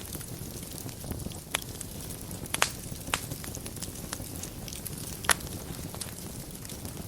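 Fire burning in a fireplace: a steady low rumble and hiss broken by sharp crackling pops, the loudest a double pop about two and a half seconds in and another about five seconds in.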